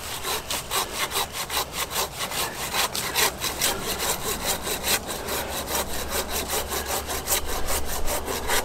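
Oregon 13-inch curved Japanese high-carbon steel pruning saw cutting through a tree branch by hand, in a quick, even rhythm of back-and-forth strokes. The saw's teeth bite mainly on the pull stroke.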